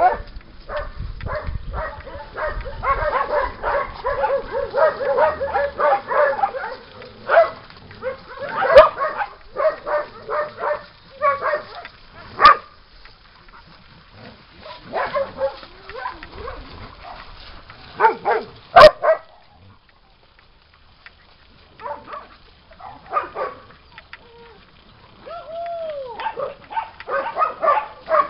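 A pack of dogs barking, many at once and overlapping for the first several seconds, then thinning to scattered barks and yips, with a few sharp knocks in between.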